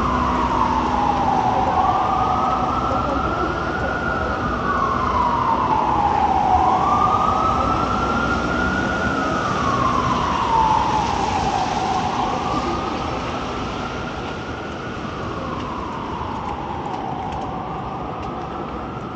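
Emergency vehicle siren on a slow wail, rising and falling about every four to five seconds and growing fainter in the second half, over steady street noise.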